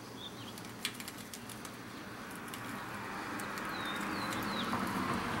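Wiring cables being pushed and fed behind a motorcycle's wiring harness: light clicks and a rustle that grows louder toward the end. A few short bird chirps come in about four seconds in.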